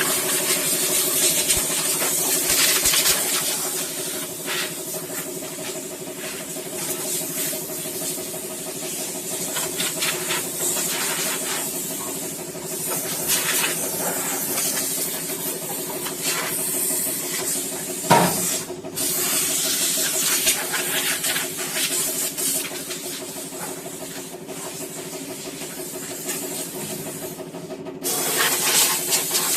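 A machine running steadily, a hum of several steady tones under a loud hiss, with a single sharp knock about eighteen seconds in.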